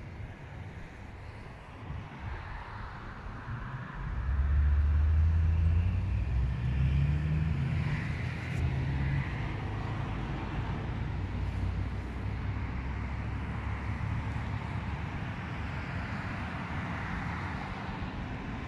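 Low rumble of road traffic, swelling about four seconds in and then holding steady.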